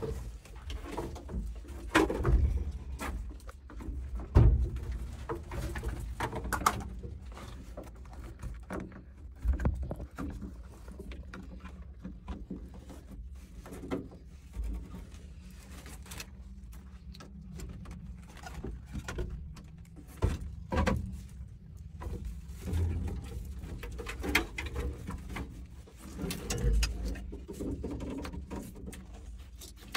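Clicks, knocks and rustling of a new wiring harness in corrugated plastic conduit being handled and pushed through an excavator's cab floor, over a steady low hum.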